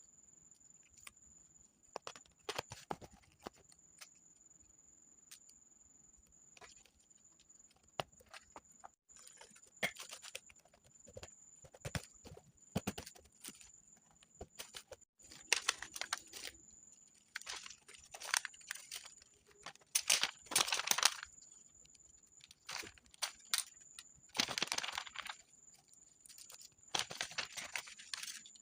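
Paper being handled for a journal: scattered light taps and clicks, and several rustling, tearing swishes of about a second each, the loudest about twenty seconds in. A faint steady high-pitched whine sits underneath.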